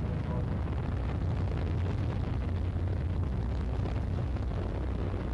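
Steady low rumble with no sharp events: the running noise of the Soyuz-2.1b third-stage engine as heard on the launch broadcast.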